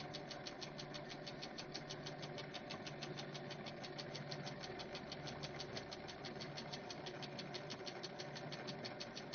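Faint, steady mechanical clatter, about seven clicks a second over a low hum.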